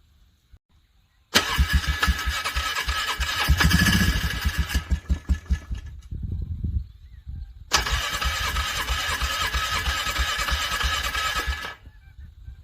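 A cold vehicle engine is cranked over on its starter twice, about four seconds each time, turning over in rapid even pulses without catching. It is struggling to crank over in frigid cold.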